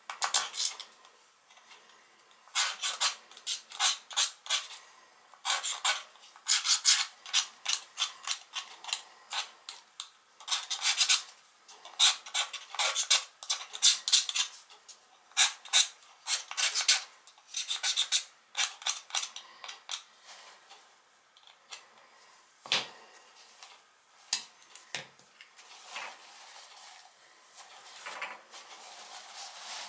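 Paper towel and gloved fingers scrubbing hair and gunk off a sink pop-up drain stopper, in bunches of quick rubbing strokes. The rubbing eases off in the last third, with a couple of soft knocks.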